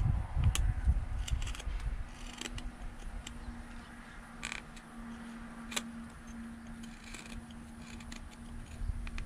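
Carving knife shaving the back of a birch spoon bowl: short, irregular scraping cuts and clicks. A faint steady low hum sits underneath from about half a second in.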